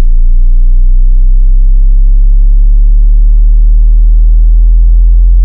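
Bass sweep test tone: a loud, very deep sine tone gliding slowly upward in pitch.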